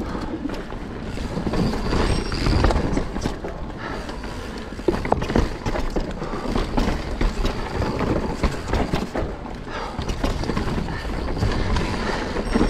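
Mountain bike riding fast downhill: knobby tyres rolling over dirt and wooden plank boardwalk, with the bike rattling and clattering over roots and bumps in irregular knocks over a steady rumble.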